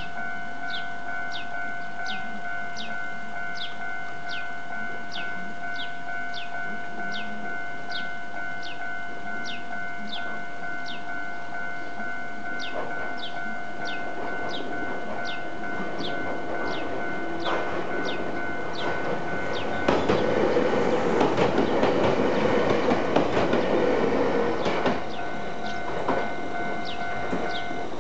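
Japanese level-crossing alarm ringing with about two strikes a second over a steady tone, while a Ryutetsu Nagareyama Line electric train (a former Seibu set) runs through the crossing, loudest for several seconds past the middle, with wheels clattering on the rails. The alarm stops near the end.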